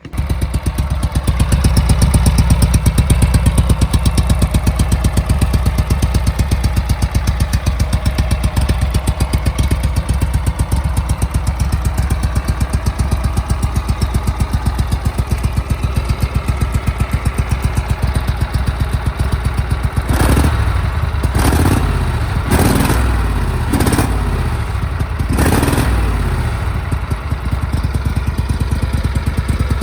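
Cub Cadet 1861 garden tractor's 18 hp Kohler Command engine running steadily under way. About two-thirds of the way through, a series of clattering knocks comes over the engine.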